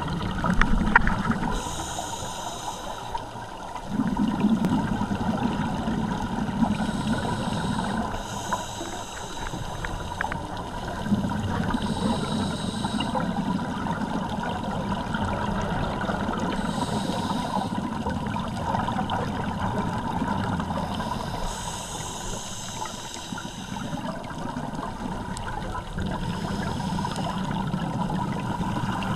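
Scuba regulator breathing heard underwater: a short hiss of inhalation about every four to five seconds, with the low bubbling gurgle of exhaled air in between.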